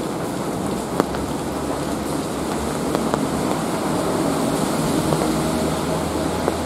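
Steady rain falling in a city, with a low traffic rumble beneath it. A few sharp taps stand out, about a second in, about three seconds in and near the end.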